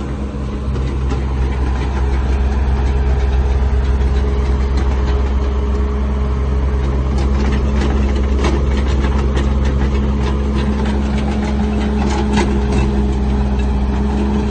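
Heavy diesel engine running steadily at a low idle-like pitch. Scattered light metallic clicks and clanks come through in the second half.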